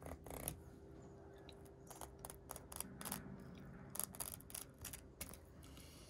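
Thin filleting knife cutting along a garfish on a plastic cutting board: a string of short, faint scrapes and ticks as the blade slices through skin and flesh and touches the board.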